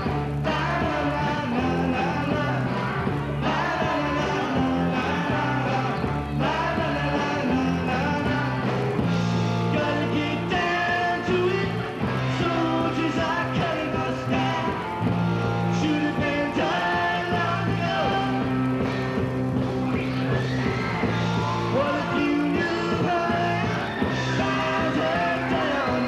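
A live rock band playing a song: a drum kit and band backing under a male lead singer, loud and continuous.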